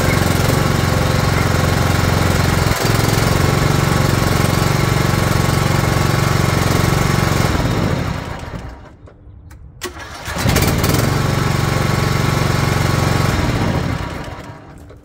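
John Deere Z225 zero-turn mower's gas engine starting promptly on a freshly installed 320 CCA AGM battery and running steadily with the choke on. About eight seconds in it is shut off and spins down. After a click it restarts at once, runs a few seconds more and is shut off again near the end.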